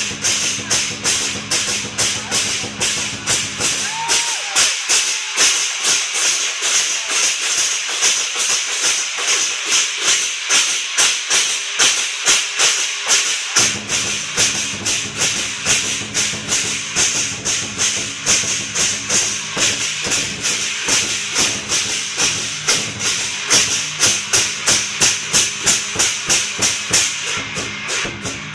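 Lion dance percussion: clashing cymbals and drum playing a fast, steady beat. The deep drum sound drops away for about ten seconds, starting about four seconds in, while the cymbals keep the beat going.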